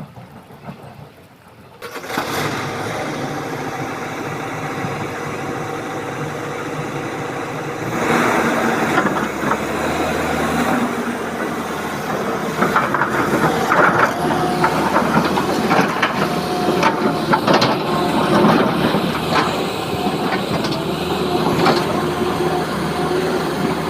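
Heavy diesel excavator engine working under load. It comes in abruptly about two seconds in, then gets louder about eight seconds in, with irregular clanks and knocks over the engine.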